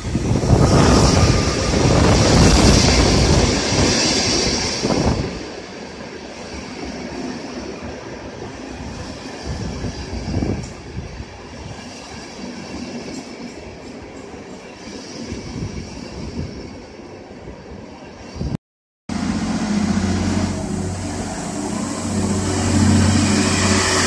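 A Siemens Taurus electric locomotive hauling passenger coaches runs into the platform. It is loudest in the first few seconds, with a high hiss, and is followed by the quieter rolling of the coaches and a single knock about halfway through. After a brief break, an electric suburban multiple unit rolls past with a steady low electric hum.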